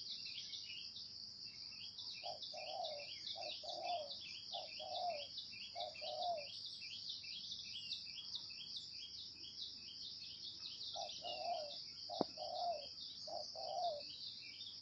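Spotted dove cooing in two phrases of about four low notes each, over steady high-pitched chirping of insects. A single sharp click comes near the end.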